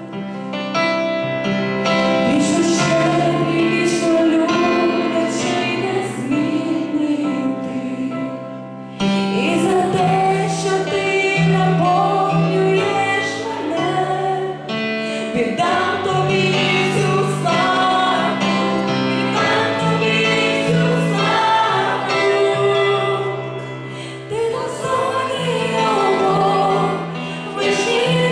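A women's vocal group sings a worship song in harmony, backed by keyboard and acoustic guitar. The music thins briefly at about eight seconds in, then comes back fuller.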